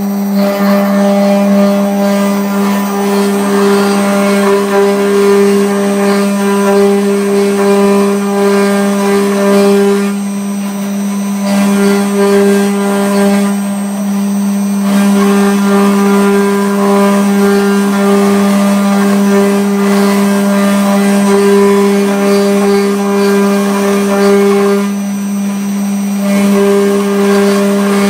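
CNC router spindle running at a steady pitch while its cutter engraves aluminium, a rough grinding cutting noise over the spindle's whine. The cutting noise drops away briefly three times, leaving the spindle's hum.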